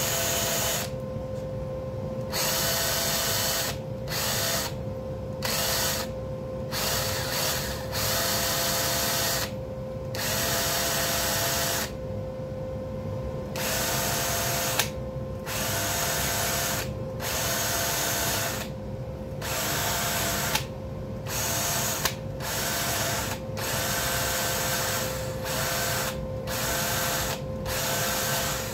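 A handheld power tool cleaning metal down to bare shine for welding. It runs steadily, with a loud scraping coming in and cutting out over and over, a second or two at a time, as it is pressed to the metal and lifted off.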